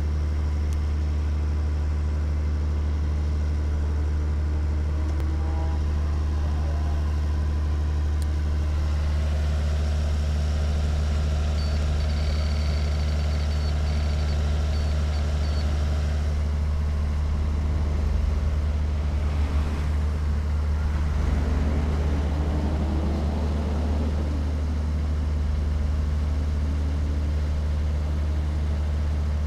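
A steady, low, engine-like drone, with a swell and some rising and falling pitch about two-thirds of the way through.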